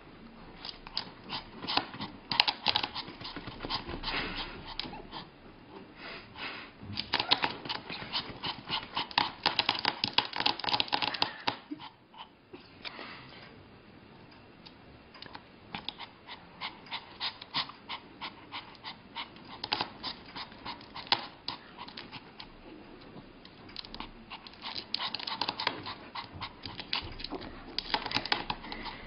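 A puppy's claws clicking and scrabbling rapidly on a glass tabletop as it paws at the edge, with soft whimpering. It comes in bursts, with a quieter lull a little before halfway.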